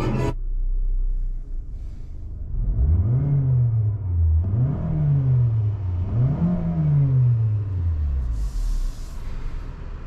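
Mazda CX-30 20S's 2.0-litre Skyactiv-G four-cylinder petrol engine idling, then revved up three times, each rev climbing quickly and falling away more slowly, each going a little higher than the one before. A short hiss comes near the end.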